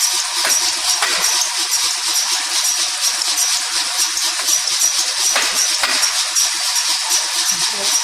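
Coconut processing machine running: a steady, loud rattling hiss with a faint regular click a few times a second.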